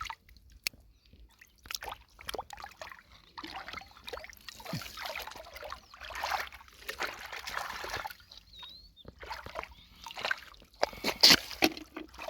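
Shallow lake water sloshing and trickling as hands move through it, in irregular washes, with scattered short clicks and a few sharp knocks near the end.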